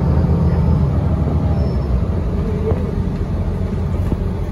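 Inside the cabin of a 2017 Gillig BRT transit bus under way: steady engine and road rumble, with a few light rattles.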